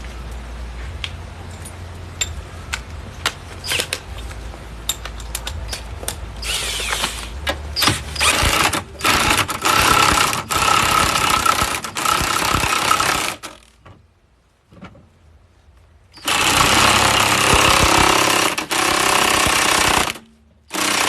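Impact wrench hammering lug nuts onto a wheel hub, in several loud bursts with short breaks, starting about six seconds in and pausing for a couple of seconds near two-thirds of the way through. Before the bursts there are light clicks of metal parts over a low hum.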